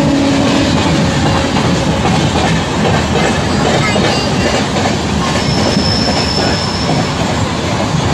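Passenger train's wheels running on the rails, a steady loud clatter heard from the coach doorway. The tail of a horn blast, falling in pitch, fades out in the first second. A brief high wheel squeal comes past the middle.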